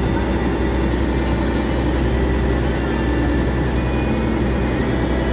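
Tour boat's engine running at a steady, even drone, heard from on board.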